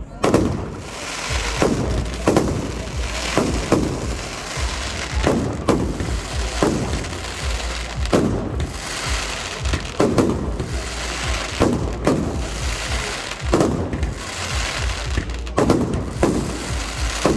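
Aerial fireworks exploding in a steady run of bangs, about one a second, each trailing off in an echoing tail over a continuous low rumble.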